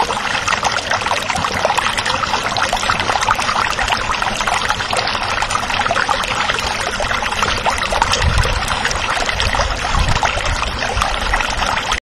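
Heavy rain falling, a steady loud hiss made of countless small drop impacts, with a few low rumbles from about eight seconds in.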